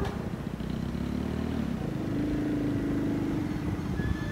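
Motorcycle engine running while riding at low speed. Its pitch rises a little about a second in, then holds steady.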